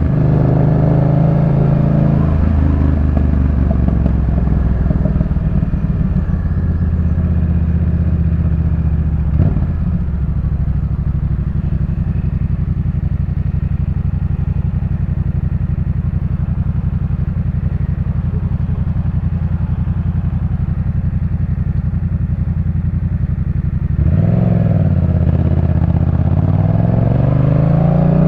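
Yamaha MT-07's parallel-twin engine through a Jeskap K4 full exhaust, heard from the rider's seat. The revs fall at first, then it holds a long steady low note with a single knock about a third of the way in. Near the end the revs rise and fall again as the bike pulls away.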